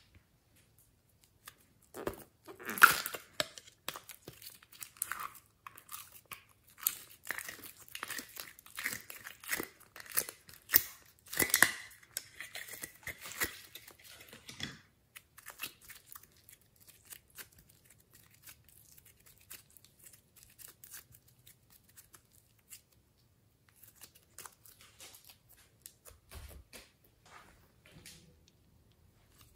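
Soft modelling clay being crumpled and squeezed by hand, giving close-up crackling: a dense run of crackles through the first half, then sparse, fainter ones.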